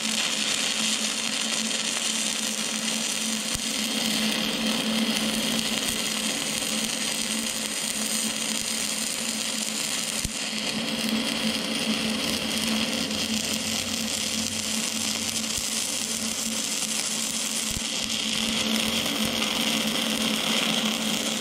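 Shielded metal arc (stick) welding with a 7018 electrode at 80 amps on a Vulcan OmniPro 220: the arc is struck right at the start and burns as a steady hiss with a low hum while the bead is run.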